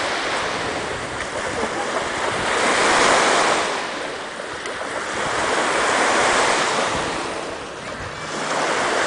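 Small lake waves breaking and washing up on the shore, the surf swelling and fading about every three seconds.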